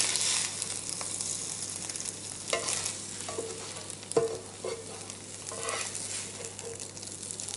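Scrambled eggs sizzling in an electric frying pan while a plastic spatula scrapes them across the pan's non-stick surface, with a few sharper scrapes about two and a half, four and five and a half seconds in.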